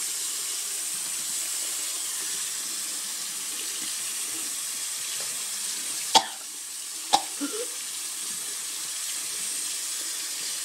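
Bathroom sink tap running steadily, with two sharp knocks about a second apart a little past the middle.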